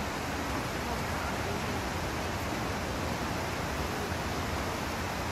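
Steady rushing of flowing water, even and unbroken, with no distinct events.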